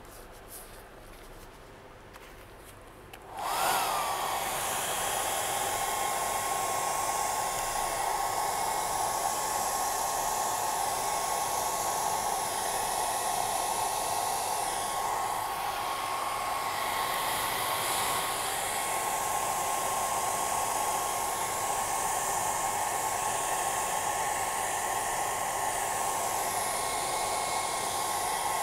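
Handheld hair dryer switched on about three seconds in. Its motor whines briefly as it comes up to speed, then it blows steadily with a high hum, pushing wet white epoxy resin into waves.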